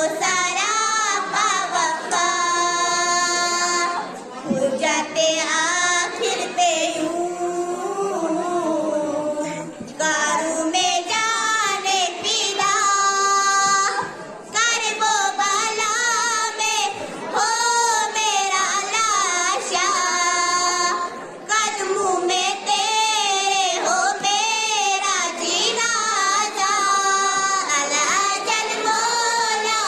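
Young girls singing a manqabat (a devotional hymn in praise of the Imam) into a microphone: one melodic line in long phrases with held, wavering notes and short pauses for breath.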